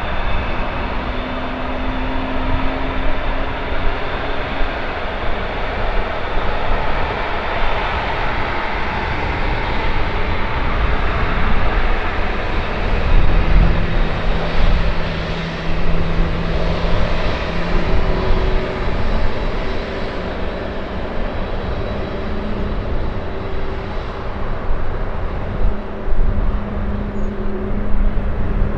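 Airbus A380-861's four Engine Alliance GP7200 turbofans at taxi power as the jet rolls slowly past: a steady engine hum and rush with a few held tones, loudest about halfway through. An uneven low rumble of wind on the microphone runs underneath.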